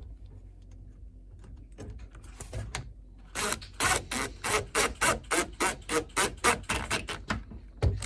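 Cordless drill driving a screw into a metal ball-bearing drawer slide. About three seconds in it starts a quick, even run of pulses, roughly four or five a second, that stops near the end.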